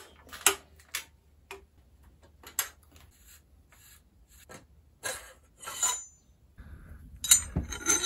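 Irregular metallic clicks and clinks from a bicycle's fork and headset bearing cup being handled and worked on, with a quick cluster of rattles near the end.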